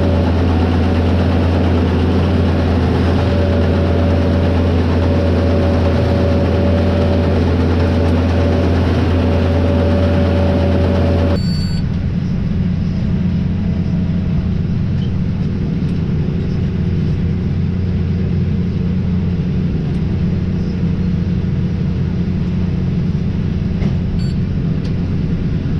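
Tractor engine running steadily while baling hay. About 11 seconds in the sound changes abruptly to a lower, rougher engine note.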